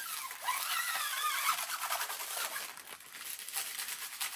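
An inflated plastic packing air cushion rubbed along the stainless-steel fret ends of an electric guitar's neck, a check for sharp fret edges. For about the first two seconds it squeaks with a wavering pitch, then it goes on as a softer scratchy rustle.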